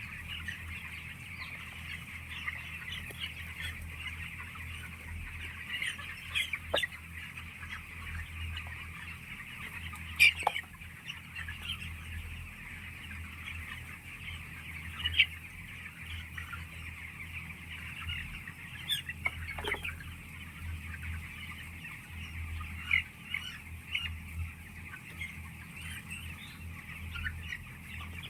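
A large flock of chickens in a poultry house keeps up a dense, continuous chatter of many overlapping calls. A few louder, sharper squawks stand out, around 10 and 15 seconds in. A steady low hum runs beneath.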